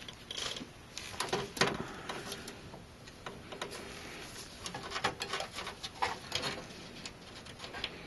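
Gloved hands handling small parts inside a computer case: scattered light clicks, taps and rustles.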